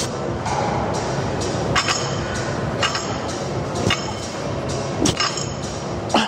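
Background music with a steady beat, with sharp metallic clinks about once a second.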